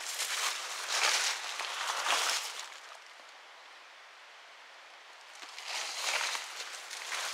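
Footsteps through dry leaves and undergrowth, with brush rustling, in uneven bursts; it stops for a couple of seconds in the middle, then starts again.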